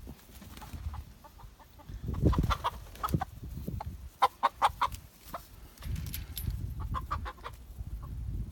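Chickens clucking in short clusters of quick clucks, with a run of four fast clucks about halfway through, over a low rumble.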